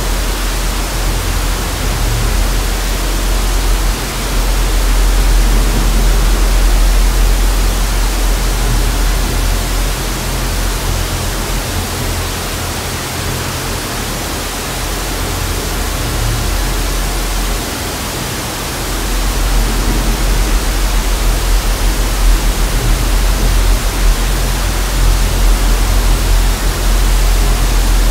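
Steady hiss of analogue TV static, with a low rumble underneath that fades for a few seconds midway and then returns.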